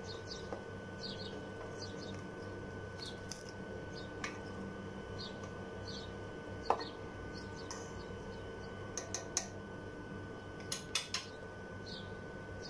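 Spoon stirring milk in a stainless steel pot, clinking against the pot now and then: the loudest clink about seven seconds in, then quick runs of knocks around nine and eleven seconds. A steady hum runs underneath.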